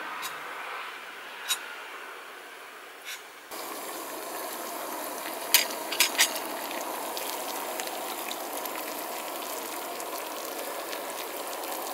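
Water heating in a metal camping pot on a gas canister stove: a steady hiss of the burner and simmering water begins a few seconds in. About two seconds later the metal lid clinks three times as it is lifted off.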